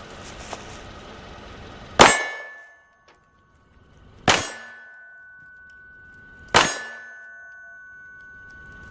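Three 9mm Glock 19 pistol shots, one every two seconds or so, each followed by a metallic ring that hangs on until the next shot.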